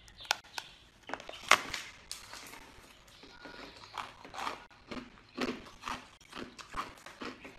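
A thick disc of ice bitten and crunched between the teeth: a series of sharp cracks and crunches, the loudest about a second and a half in.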